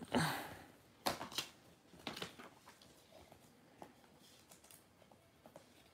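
Light clicks and rustles of plastic Blu-ray cases and paper inserts being handled, a few louder ones in the first two seconds, then faint scattered ticks.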